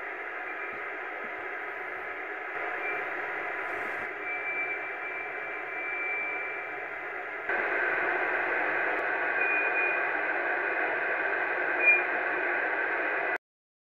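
Yaesu all-mode transceiver receiving in USB on 143.048 MHz: steady receiver hiss with short whistle-like tone pings from meteor-scatter reflections. Several brief pings come through, one lasts about two seconds, and the loudest is a quick ping near the end. The hiss gets louder about halfway through.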